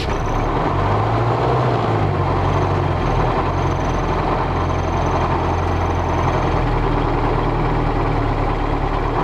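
ZIL-5301 Bychok's four-cylinder MMZ D-245 diesel running at idle, its low hum swelling and fading a few times. The idle is unsteady and the engine keeps stalling even after rebuilt injectors, which points to a cylinder not firing.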